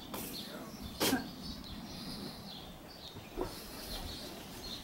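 A few sharp knocks, the loudest about a second in and a softer one near the end, over faint outdoor background with short, faint bird chirps.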